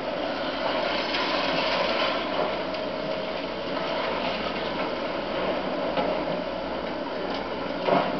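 Demolition excavator working on a concrete apartment block: its engine runs steadily, with scattered knocks of breaking concrete and a louder crash near the end.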